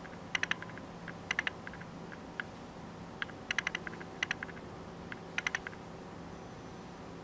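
Fingertips rubbing and working through hair on the scalp, giving short clusters of dry crackly clicks about once a second, over a faint steady hum.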